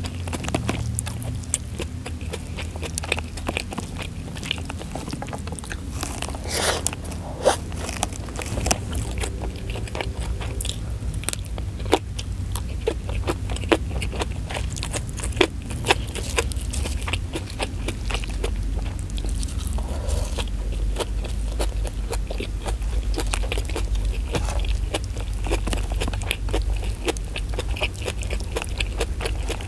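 Close-miked chewing and crunching of rice with omelette and sambal matah eaten by hand, with many sharp, wet mouth clicks.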